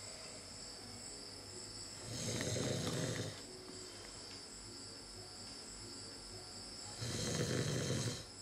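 A man snoring in his sleep: two long snores about five seconds apart, the first about two seconds in and the second near the end.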